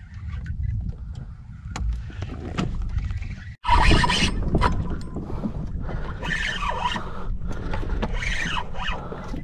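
Wind rumbling on the microphone and water sloshing around a small boat, with a sudden louder rush about four seconds in.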